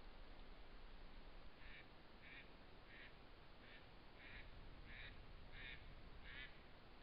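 A faint, regular series of eight short animal calls, about three every two seconds, starting a couple of seconds in, over a low steady hiss.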